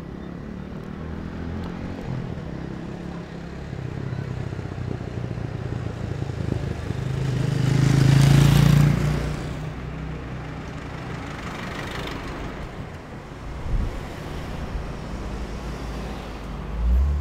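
City street ambience of steady traffic noise. About halfway through, a motor vehicle passes close by, its engine sound rising and then falling away. Two dull thumps follow near the end.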